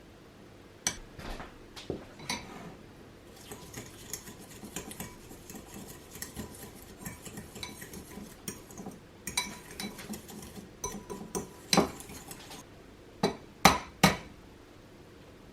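A metal fork mixing ingredients in a bowl: a few clinks, then about nine seconds of quick, dense clinking and scraping against the bowl, then three loud sharp clinks of the fork against the bowl near the end.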